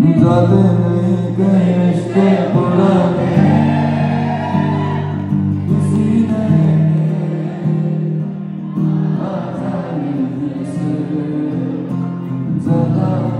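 A man singing live into a microphone over his own guitar accompaniment, with long held, sustained notes.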